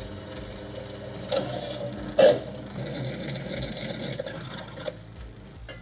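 Pedestal drill press running, a small twist bit drilling into stainless steel sheet: a steady motor hum under the cutting noise, which grows briefly louder twice, about one and a half and two and a quarter seconds in.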